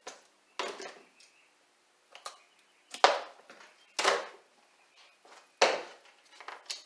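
Small objects being handled and set down on a wooden workbench: about six short knocks and clatters, spaced a second or so apart.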